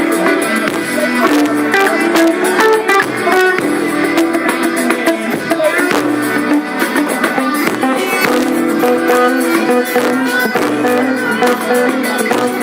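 A live band playing, with guitar prominent and a lead line soloing over the song.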